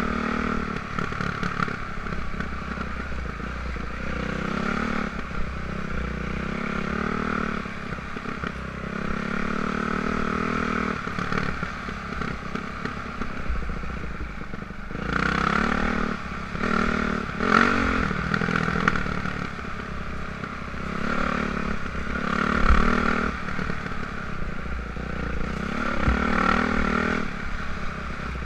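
Yamaha YZ450F single-cylinder four-stroke dirt bike engine running under load, its pitch rising and falling with the throttle. Rattles and knocks from the bike over rough ground are busiest about halfway through.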